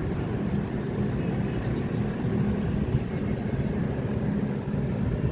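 Steady low rumble of a vehicle running, even throughout with no distinct events.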